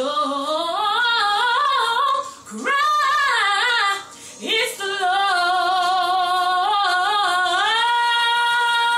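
A woman singing unaccompanied gospel: wordless, sliding vocal runs broken by two short breaths, then one long held note near the end.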